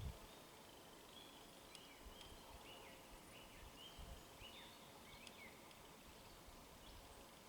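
Faint bird chirping, a run of short, high, falling notes about two a second, over a faint low distant rumble.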